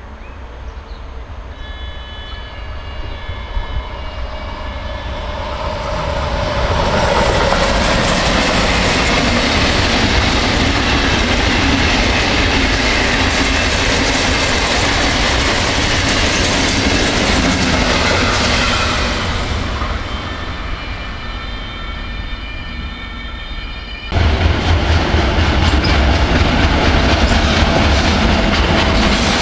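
A train passing at speed: wheels rumbling and clattering on the rails, building up over several seconds and easing off after about twenty. About 24 seconds in, the sound cuts abruptly to another loud passing train.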